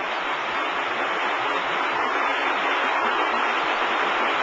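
Steady, even mechanical noise of a W & H tilt-tray sortation conveyor running.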